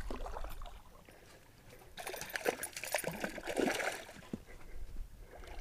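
Hooked chain pickerel thrashing at the water's surface, a spell of splashing from about two to four seconds in.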